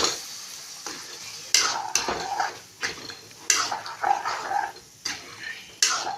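A spoon stirring and scraping in a cooking pot of guguni, with a string of short scrapes and clinks against the pan.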